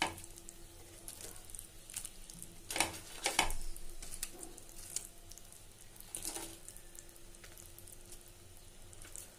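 Fried pakoras dropped one at a time into simmering kadhi (yogurt and gram-flour curry) in a pan, landing with a few soft plops, the loudest a pair about three seconds in and another near six seconds, over a faint low simmer.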